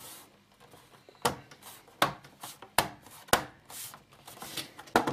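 Plastic bottom cover of an Asus G75V laptop being pressed back onto the chassis, its clips snapping into place in a handful of sharp clicks about a second apart, with light rubbing of hands on plastic between them.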